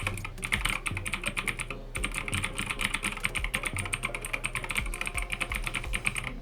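Fast typing on a 60% mechanical keyboard with clicky blue switches, a dense run of sharp key clicks with a brief pause about two seconds in.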